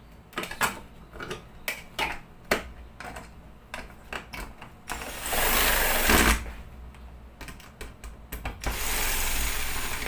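Scattered clicks and knocks of parts being handled, then a power drill driving in screws in two bursts, each about a second and a half long, one midway and one near the end.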